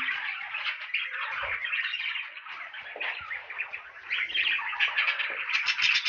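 Budgerigars chattering and warbling, several birds at once, a busy run of chirps that grows louder and quicker over the last two seconds.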